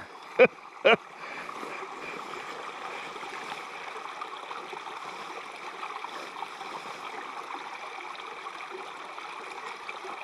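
A small mountain stream running steadily over rocks. In the first second, two short voice sounds stand out above it.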